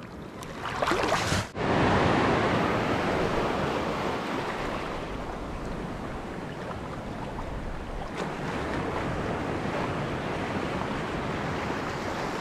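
Sea surf washing and breaking over shallow reef water, a steady rushing noise that is loudest about two seconds in and then eases slightly, with some wind.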